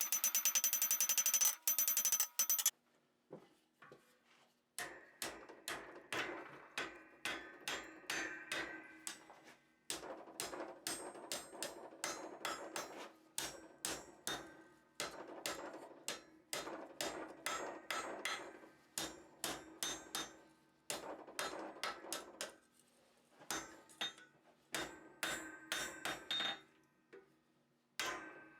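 Hand hammer forging hot half-inch square iron bar on an anvil. A quick, loud ringing run of blows opens, then after a short pause come repeated bunches of blows, about three to four a second, separated by brief pauses.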